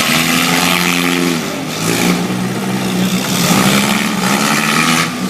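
Engines of four-cylinder demolition derby cars running hard and revving, their pitch rising and falling, over a dense, noisy din.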